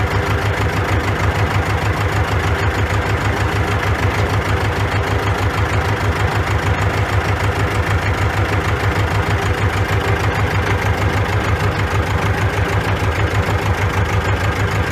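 Ursus C-330's two-cylinder air-cooled diesel engine running steadily as the tractor drives along, with an even, rapid pulsing beat, heard from the driver's seat.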